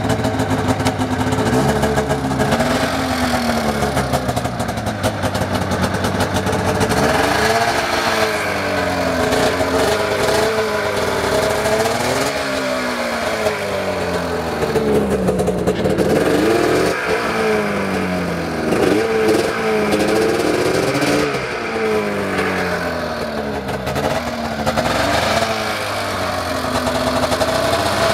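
Arctic Cat M7 snowmobile's two-stroke twin engine running at idle, then revved in repeated short throttle blips from about seven seconds in, each rising and falling in pitch, before settling back to a steady idle near the end.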